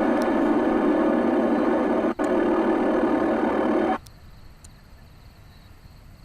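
Scanner radio putting out a steady, buzzy tone through its speaker with no voice. The tone breaks off for an instant twice and cuts off about four seconds in, leaving faint hiss.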